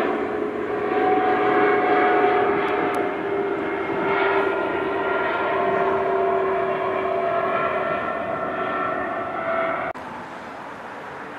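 Jet engines of a twin-engine widebody airliner climbing out at takeoff power overhead: a steady roar with several held tones that slowly fall in pitch. About ten seconds in, the sound cuts off abruptly to a quieter, more distant roar.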